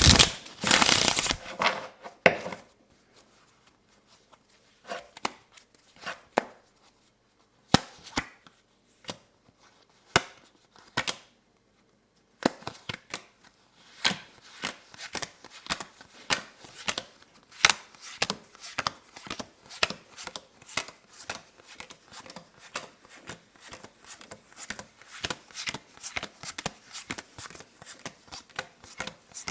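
Playing cards handled: a loud shuffling rustle at the start, then scattered clicks of the cards, and from about halfway a steady run of sharp taps on the cards, about two a second.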